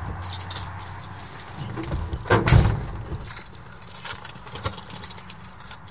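Light metallic clicks and jingling, with one heavy thump about two and a half seconds in.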